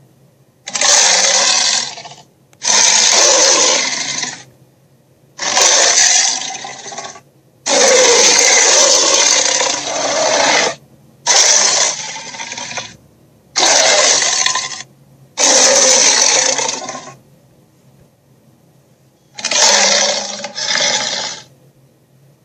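Dragon roar sound effects: a series of about eight harsh, rasping roars, each a second or two long, with short pauses between them.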